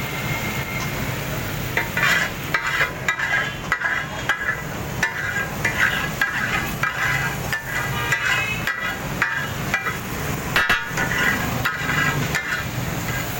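Metal spatulas chopping and clanging on a flat iron griddle (tawa) in quick, uneven strokes: the taka-tak of chopping and frying brains and kidneys. The ringing clinks start about two seconds in, over a steady low hum.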